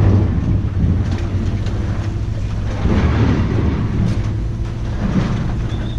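Steady low rumble of a running vehicle, engine and road noise.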